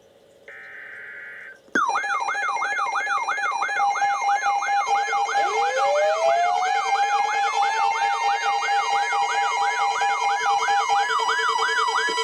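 The last two short buzzing bursts of a weather-radio alert's digital header, then about two seconds in, many weather alert radios sounding their alarms at once for a tornado warning. A fast warbling siren-like tone sweeps nearly three times a second, layered with steady tones, a wail rising in pitch and a pulsing beep.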